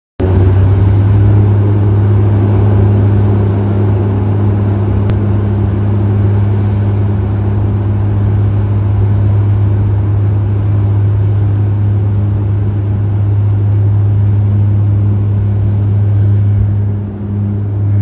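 Turboprop airliner's engines and propellers running at high power during the takeoff roll, heard from inside the cabin: a loud, steady drone with a strong low hum that wavers slightly near the end.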